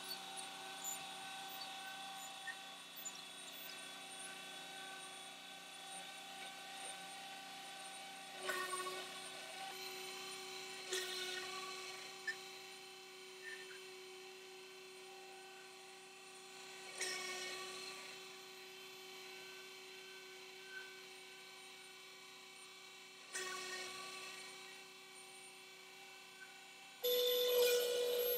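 Desktop CNC router's spindle motor running with a steady whine of several held tones as its engraving bit mills traces into copper-clad circuit board. The tone and loudness shift abruptly a few times, and it gets noticeably louder with one strong tone near the end.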